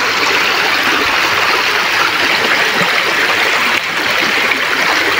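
Shallow stream running over rocks at an old weir, a steady rushing burble of water.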